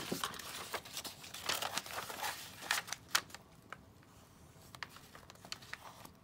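Paper being handled at a craft desk: rustling and crinkling with small taps and clicks, busiest in the first three seconds or so, then sparser light ticks.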